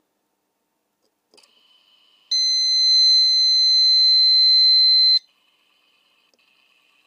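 Warning buzzer of a Prosports Premium oil temperature gauge sounding one steady, high-pitched beep of about three seconds during its power-on self-test, then cutting off sharply. A faint click comes just before it.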